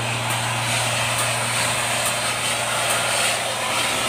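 Heavy construction machinery running steadily: a constant engine hum under an even mechanical noise, with faint ticks repeating about once a second.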